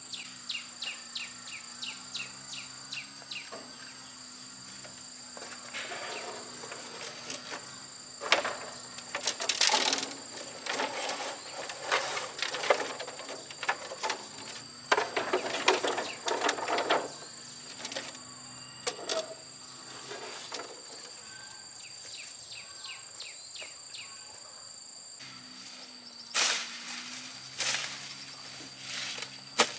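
Insects trill steadily in two high, unbroken tones, with a fast pulsing chirp at the start. From about 6 to 17 seconds, and again near the end, bursts of rustling, scraping and knocking from handling things break over the insects.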